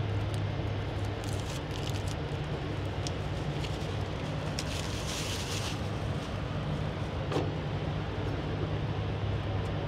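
Steady low hum of an idling truck engine, with a few light clicks over it.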